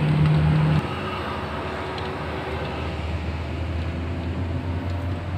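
Steady engine hum and road noise of a moving car, heard from inside the cabin. A low droning tone drops away about a second in, and the steady hum carries on.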